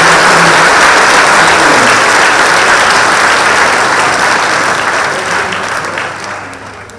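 Audience applauding, the clapping dying away over the last two seconds or so.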